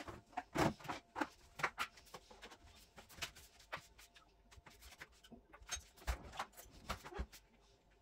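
Irregular light clicks and knocks, a few louder clunks among them, as things are handled and set down during kitchen cleaning.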